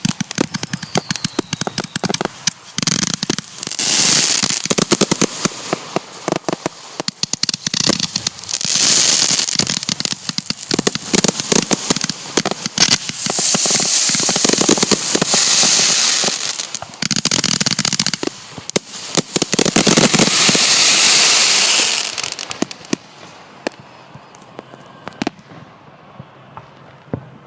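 Aerial fireworks display: rapid sharp bangs and dense crackling come in four waves, then thin out to scattered pops for the last few seconds.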